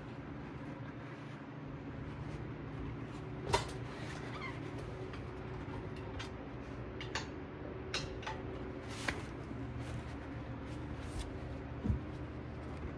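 A few sharp metallic clicks and knocks as a socket and half-inch breaker bar are fitted to and worked on a truck's caliper bracket bolts, the loudest about three and a half seconds in and a duller thump near the end. A steady low hum runs underneath.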